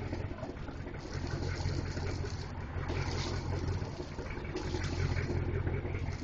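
Fuel-injected PCM 6.0L V-8 inboard engine of a wooden runabout running steadily at idle, a low even rumble, with a hiss that comes and goes every second or so.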